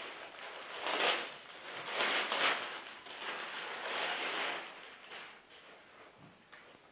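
Clear plastic bag crinkling in several bursts as a cap is pulled out of it, dying away about five seconds in.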